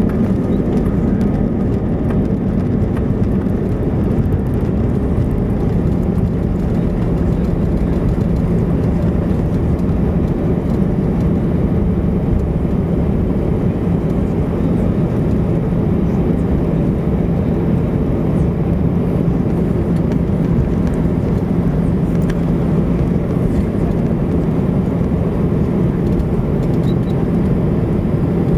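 Cabin noise of an Airbus A319 rolling along the runway after touchdown: a steady, even low rumble of the engines and airflow with a constant hum underneath, heard from inside the passenger cabin.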